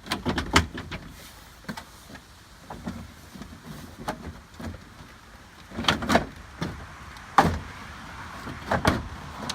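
Plastic interior door panel of a 2001 Chevrolet Silverado being slid down into its groove on the door and pressed into place. It gives a scatter of sharp plastic knocks and clacks: a cluster at the start and more in the second half.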